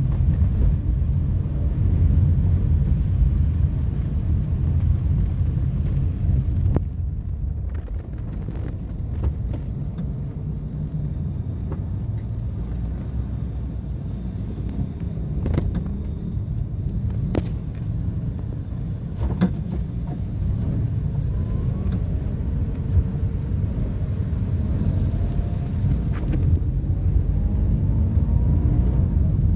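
Low, steady rumble of a car's engine and tyres heard from inside the cabin while driving on a wet road, easing off for a while in the middle when the car slows at a junction. A few sharp clicks come partway through, and a rising engine note is heard near the end.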